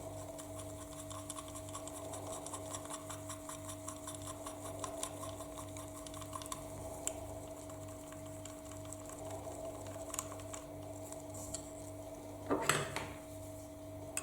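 Small metal parts and tools being handled: a run of rapid light clicks, then one short, louder metallic clatter near the end, over a steady low hum.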